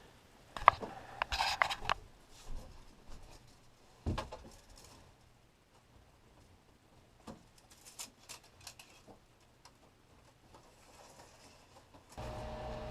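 Scattered knocks, clicks and scraping from wood and hardware being handled while a bed frame is repaired, with one heavier thump about four seconds in. Near the end a steady hum with a few held tones starts suddenly.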